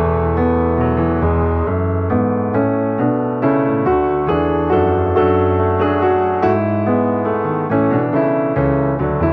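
Background music led by piano: a steady run of notes over sustained low bass chords.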